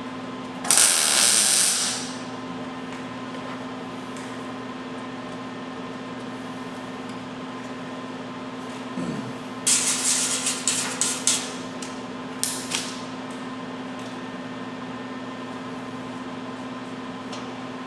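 Electric arc welding in short bursts: a sizzling hiss of about a second near the start, then a run of rapid crackling pulses around ten seconds in and a brief one just after, over a steady machine hum.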